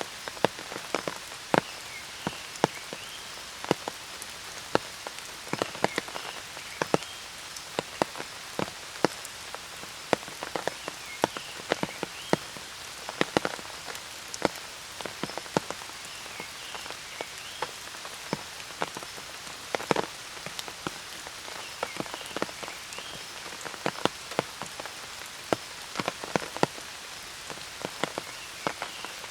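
Steady rain falling on a forest path, with many sharp, loud drops striking close by among the even patter.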